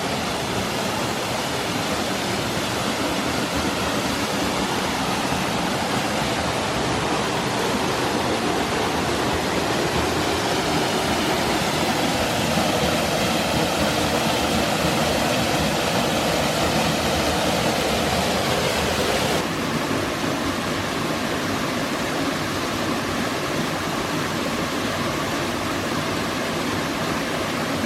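Steady rush of a waterfall: falling water pouring into a pool, an even hiss with no let-up. The sound's character shifts slightly about two-thirds of the way through.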